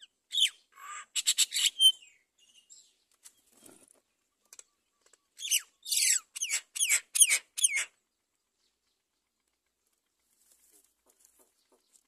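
High-pitched calls at a great myna nest as the adult feeds its chicks: a burst of short calls mixed with fluttering at the start, then about six quick shrill calls, each sliding down in pitch, in the middle. A faint rustle of nest material follows near the end.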